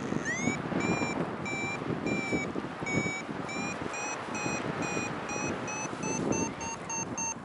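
Flight variometer beeping its climb tone, the short beeps quickening from about two a second to about three a second and rising slightly in pitch as the lift strengthens. Under it is steady wind rush on the microphone.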